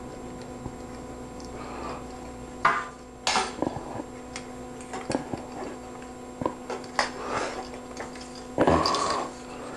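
Scattered clicks and knocks of microphone hardware being handled and fitted to a boom arm and mic holder, over a steady low hum. Near the end, a louder short burst of noise.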